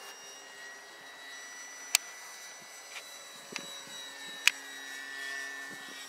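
Electric motor and propeller of a ParkZone Focke-Wulf RC warbird, a high whine that drifts slightly in pitch as it flies. Two sharp clicks stand out, one near two seconds in and one near four and a half seconds in.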